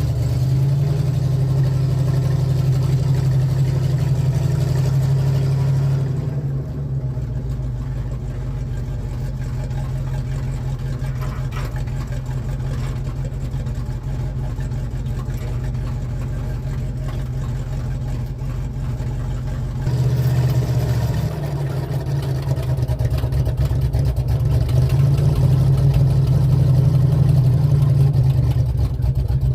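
An engine running steadily. It drops to a lower, quieter note about six seconds in and comes back up about twenty seconds in.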